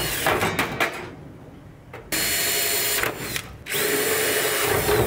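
Cordless drill drilling out the rivets that hold an old vent's aluminum frame in a trailer's aluminum shell. It runs in three bursts with short pauses between.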